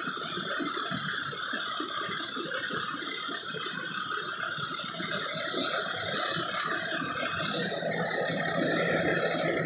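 Fire truck's hydraulic system running, a steady mechanical whir with some rattle; a low steady hum joins about eight seconds in.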